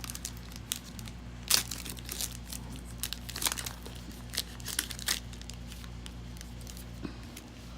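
Foil Pokémon booster pack wrappers crinkling and tearing as packs are opened: a string of sharp, crackly rustles, loudest about one and a half seconds in and dying down after about five seconds. A steady low hum runs underneath.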